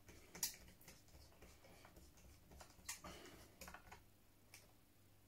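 A handful of faint, separate clicks of small screws being handled and set into the plastic bottom cover of a Dell Inspiron 3584 laptop.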